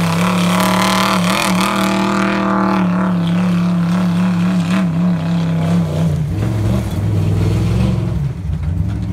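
468-cubic-inch stroker big-block V8 in a lifted truck running hard at high revs, its pitch wavering with the throttle. About six seconds in the revs drop and the sound goes lower and duller as the truck moves off.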